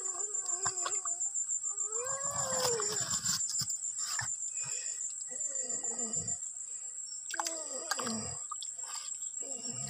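Insects droning steadily at a high pitch, with scattered splashes and scrapes as a bare hand gropes in shallow stream water under a rock for crabs.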